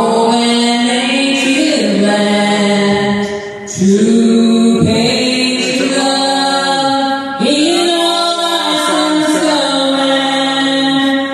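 Vocal music of long held notes, sung in slow phrases that start with a scoop in pitch and break every few seconds.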